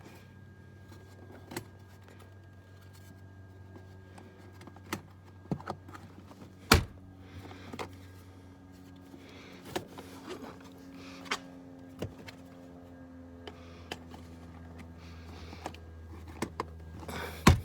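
Hard plastic trim pieces and clips in a car interior being handled and snapped into place: scattered clicks and knocks, with a sharp knock about seven seconds in and another near the end. In the middle a small electric motor runs with a steady whir for several seconds, over a low hum.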